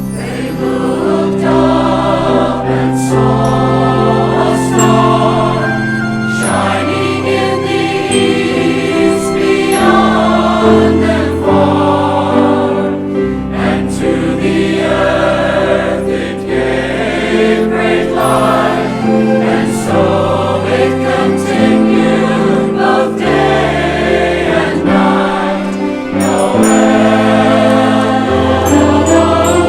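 Church choir singing a Christmas carol arrangement with orchestral accompaniment, held low bass notes under the voices.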